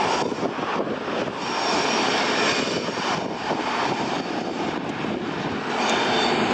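Diesel-hauled freight train of tank wagons running: a steady, dense rushing and rumbling noise.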